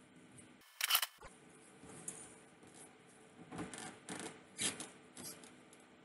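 Scattered short rustles and knocks of someone moving about while pulling on fishnet stockings and adjusting clothing. The loudest comes about a second in, and a cluster of smaller ones follows near the middle.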